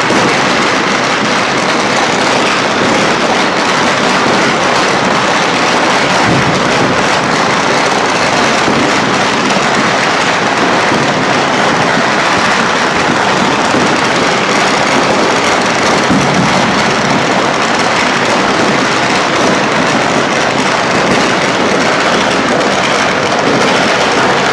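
Many firecrackers and fireworks going off at once in a dense, unbroken crackle and bang that merges into one steady din, at an even loud level throughout.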